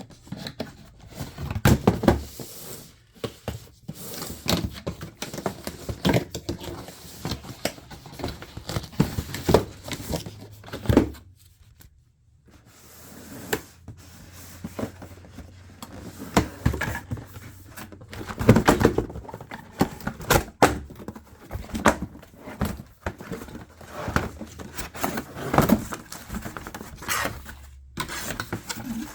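Packaging and a desktop monitor stand being handled during unboxing: irregular knocks, thuds and clatters with rustling and scraping of the wrapping, broken by a short quiet pause about twelve seconds in.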